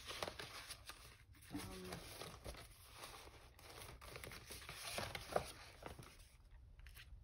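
Paper and card stock rustling and shuffling, with small irregular taps and scrapes, as a pile of journal cards and paper scraps is sorted through by hand.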